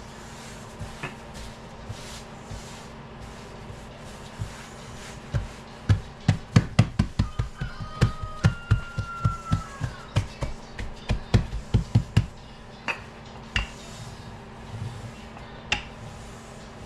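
A run of dull knocks, about two to three a second, starting about five seconds in and stopping about seven seconds later, with a few single knocks after.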